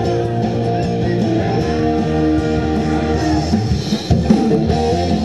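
Guitar-led music playing steadily, with strummed electric guitar chords.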